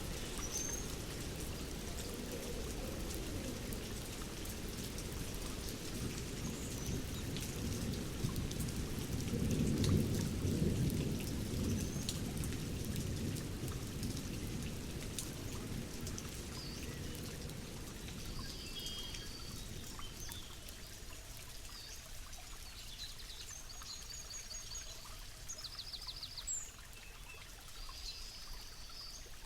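Steady rain with a low roll of thunder swelling about a third of the way in, from a forest thunderstorm recording. Birds chirp and trill over the rain in the second half as the rain slowly eases.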